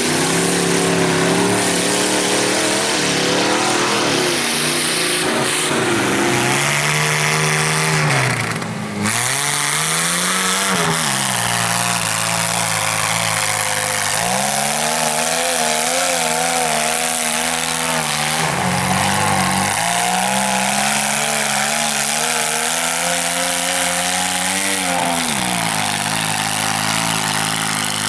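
Small 4x4 mud truck's engine revving hard as the truck churns through mud, its pitch climbing and falling again and again with the throttle, with a brief drop about nine seconds in.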